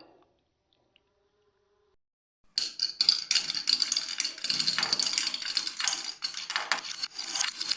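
Marbles rolling and clattering down a wooden marble run, starting about two and a half seconds in: a dense, irregular rattle of many quick clicks as the balls run along the wooden tracks and knock through the cups.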